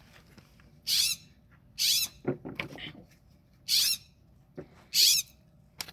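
Blue jay squawking: four short, harsh, high calls about a second apart.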